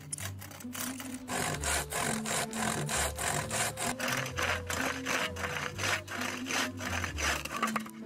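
Hand saw cutting through a log on a sawbuck, in quick back-and-forth strokes, each a short raspy rub of the teeth through wood, coming on harder about a second in.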